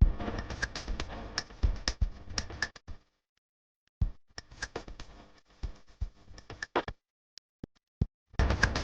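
Irregular light clicks and taps, as of small tools and parts being handled close up, in short edited bursts broken twice by dead silence.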